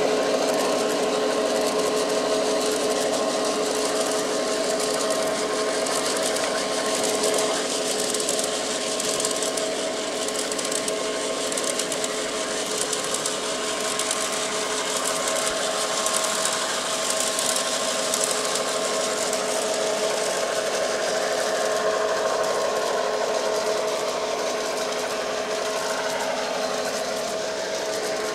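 Garden-scale LGB model freight train running on its track: a steady mechanical whine from the locomotive's motor and gears, with the even rolling of many wheels on the rails.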